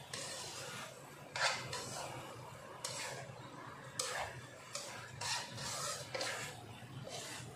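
Black plastic slotted spatula scraping and stirring chunky vegetables and beans around a nonstick wok, in irregular strokes, the loudest about a second and a half in. A faint low steady hum runs underneath.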